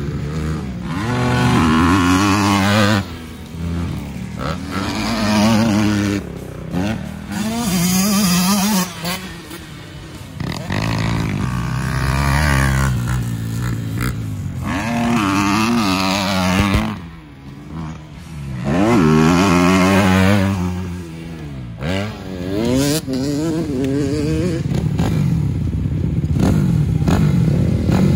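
Motocross bike engine revving hard, its pitch climbing and dropping away again and again as it rides.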